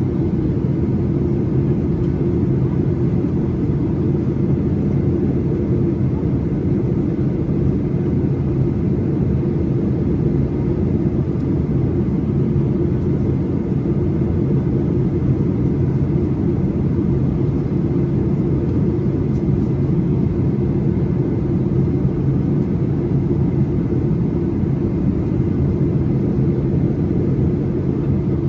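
Boeing 737-800 jet noise from its CFM56-7B engines: a steady, even rumble with a low hum, holding the same level throughout.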